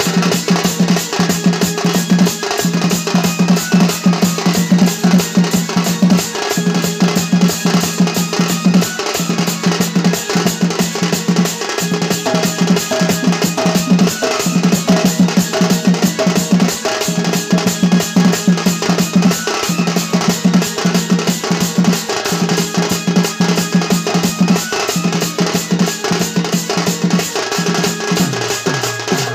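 Dhol, a double-headed barrel drum, played by hand in fast, dense strokes in a steady driving rhythm for a Sambalpuri danda dance.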